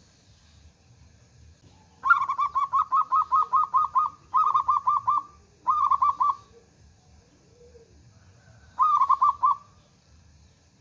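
Zebra dove (perkutut) calling: rapid runs of short, repeated cooing notes in four bursts, the first and longest about two seconds in, the last near the end.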